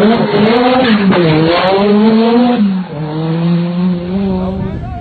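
Rally car engine revving hard, its pitch climbing and dropping several times with the gear changes, then holding a steadier, lower note for the last couple of seconds, over a loud hiss of tyre and road noise.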